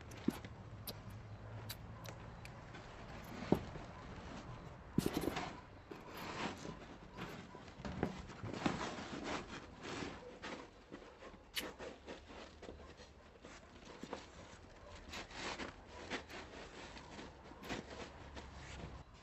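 Irregular scrapes and sharp knocks of manual work, a few scrapes per second, with the loudest knocks about 3.5 and 5 seconds in.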